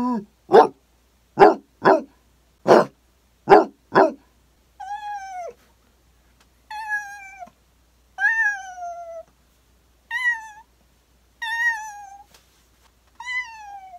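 A person's voice imitating a dog with four short barks, then a cat with six drawn-out, falling meows.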